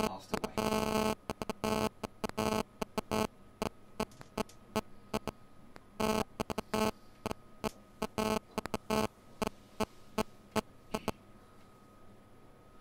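Stuttering electrical buzz of audio interference, in many short irregular bursts over a faint steady hum; the bursts stop about two seconds before the end.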